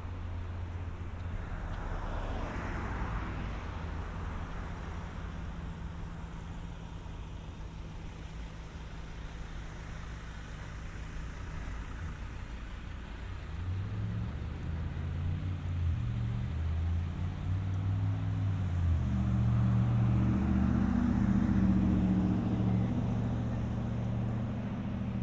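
An engine running steadily, growing louder from about halfway through as its pitch shifts up and down in steps.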